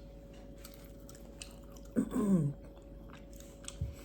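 A person chewing food, with faint mouth clicks, and a loud "mmm" of enjoyment falling in pitch about two seconds in. A short low thump comes near the end.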